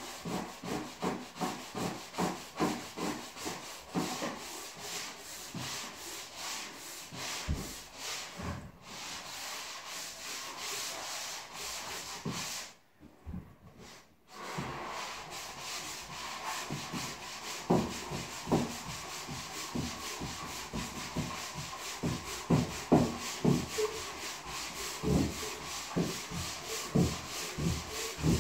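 Drywall being sanded by hand: rhythmic back-and-forth rubbing strokes, about two to three a second, stopping briefly a little before halfway, then going on with some louder strokes near the end.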